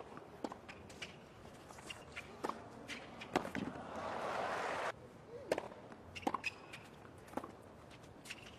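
Sharp single knocks of a tennis ball bouncing and being struck by rackets on a hard court, scattered about a second apart, over a quiet stadium crowd. A burst of crowd noise about three and a half seconds in cuts off suddenly a second and a half later.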